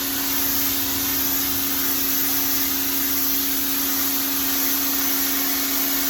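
Pressure washer running and spraying water onto an outdoor rug: a loud, steady hiss of the jet over a constant hum from the machine.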